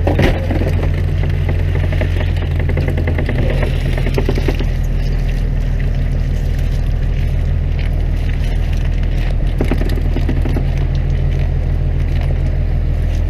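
A fishing boat's engine runs steadily while the line hauler brings up a wire-mesh fish trap, with rattling and scraping a few seconds in and again about ten seconds in as the trap comes over the rail.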